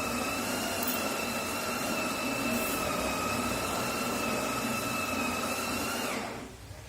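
Electric motor of a home espresso machine running with a steady whine, then switching off near the end, its pitch dropping as it spins down.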